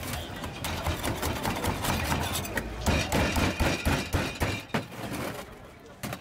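A knife blade repeatedly striking and scraping into a large block of ice, a run of short sharp knocks as the block is scored and split apart.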